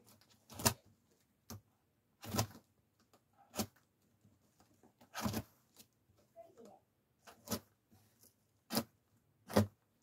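Packaging being torn open by hand: about seven short, sharp rips at irregular intervals.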